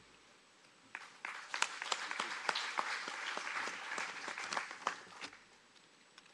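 Audience applauding, starting about a second in and dying away about five seconds in.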